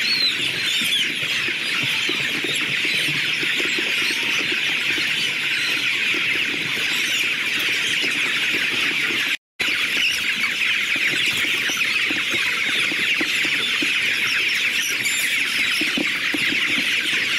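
A large flock of young chickens peeping and cheeping together in a dense, steady, high-pitched chorus. The sound cuts out for an instant a little past halfway.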